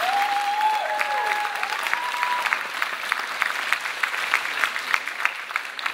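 Audience applause, many hands clapping fast and dense. In the first couple of seconds one high, drawn-out call rises above it. The clapping thins out and grows quieter toward the end.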